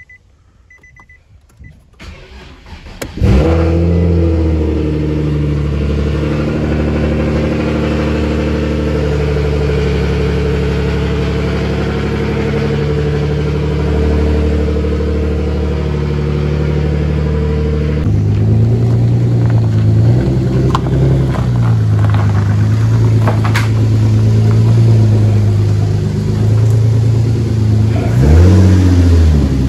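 After a few faint beeps, a Nissan 370Z's 3.7-litre V6 starts about three seconds in and idles steadily. From about 18 s in it runs with small changes in engine speed, with a brief dip and rise in pitch near the end, as the car is moved onto the frame machine.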